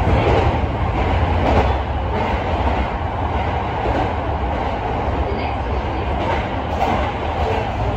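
Electric commuter train running through an underground rail tunnel, heard from inside the leading car: a steady rumble of wheels on the rails, with a few faint rail-joint clicks.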